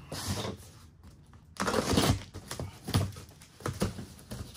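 Shredded paper packing fill rustling and crackling in short bursts as it is pushed into a cardboard box, along with the cardboard being handled.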